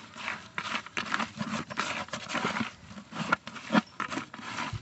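A hand scraping and kneading damp ground fish-feed meal against the bottom of a plastic bucket, mixing it with a little water into bait: an irregular run of short rustling scrapes.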